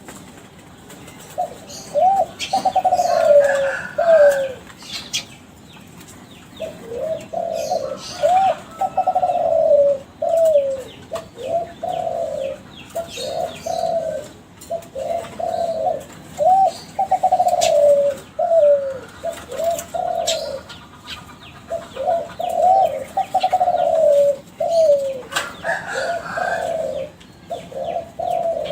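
Kelantan derkuku (a spotted dove strain bred for song) cooing in repeated phrases of several low coos each, separated by short pauses. Higher chirps from other birds come in a few times.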